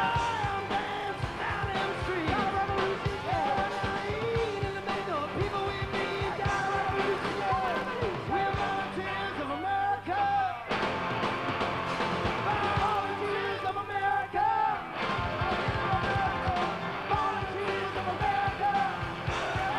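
Live rock band playing, with lead vocals sung over electric guitar and drums.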